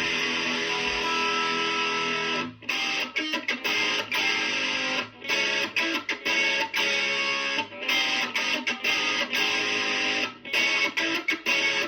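Electric guitar playing a pop tune, with held notes at first, then a choppy picked rhythm broken by short stops from about two and a half seconds in.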